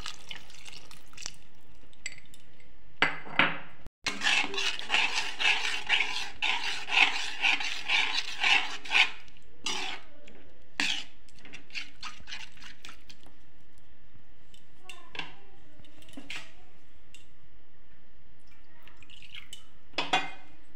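Metal spoon scraping and knocking against a metal pan while stirring cornflour slurry into the sauce to thicken it. A fast run of scraping strokes comes about four to nine seconds in, followed by scattered knocks, over a steady hiss.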